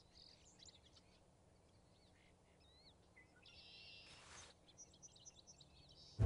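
Faint birdsong: scattered small chirps and tweets, with a short soft noise about four seconds in. Loud music cuts in suddenly at the very end.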